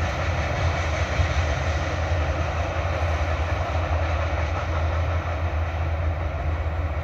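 Freight train cars rolling away along the rails: a steady rumble with wheel and rail noise.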